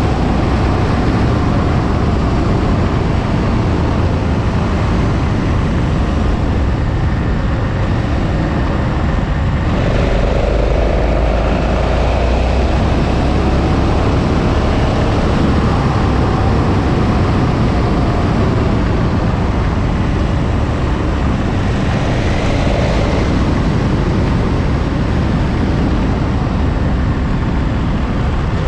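KTM 1290 Super Adventure's big V-twin engine running at road speed, mixed with heavy wind noise over the camera microphone.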